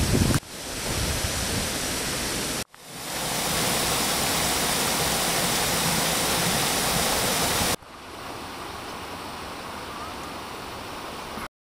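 Steady rushing of water in a canal lock chamber as it fills, broken by abrupt cuts about half a second, nearly three seconds and nearly eight seconds in, and quieter after the last cut.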